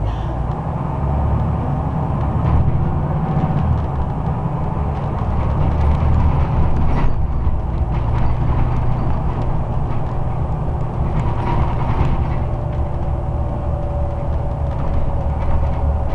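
Scania OmniCity bus heard from inside the passenger saloon on the move: a steady low drone of engine and road noise, with the interior fittings rattling and clicking throughout.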